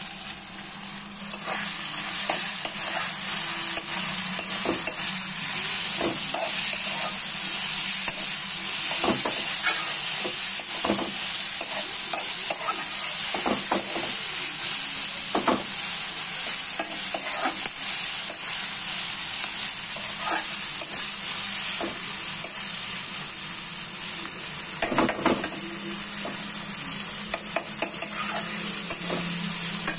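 Fenugreek leaves and tomatoes sizzling steadily in a metal kadhai while a metal spoon stirs and scrapes them against the pan, with scattered light clinks of spoon on pan.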